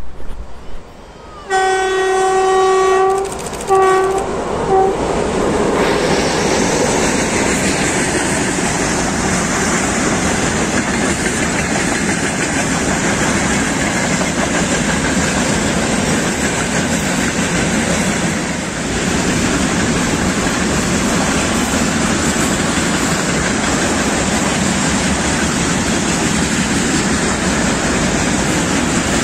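2TE116 diesel locomotive sounding its horn, one long blast then two shorter ones, as it comes by with a train of oil tank wagons. Then the steady rolling noise of the loaded tank wagons running past on the track.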